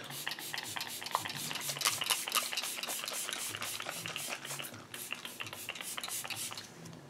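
Smashbox primer water mist bottle pumped over and over at the face, a quick run of short spritzing hisses, several a second, which stops just before the end.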